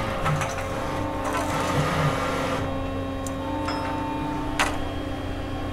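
Shipboard winch machinery running with a steady hum while the rock dredge is hauled up. A single sharp clank comes about four and a half seconds in.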